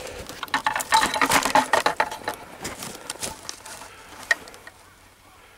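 Dry bamboo leaves and twiggy undergrowth rustling and crackling as they are brushed and stepped through, busiest in the first couple of seconds and then thinning out, with one sharp snap about four seconds in.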